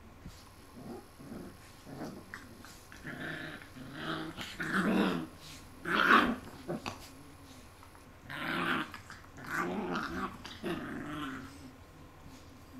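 Puppies growling in play while wrestling, in a series of short growls, the loudest about six seconds in.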